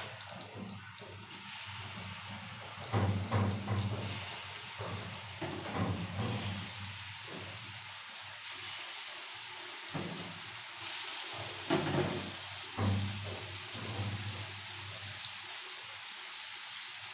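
Gola kababs of minced mutton sizzling as they shallow-fry in hot ghee over a low flame; the steady sizzle sets in about a second in, with a low hum coming and going underneath.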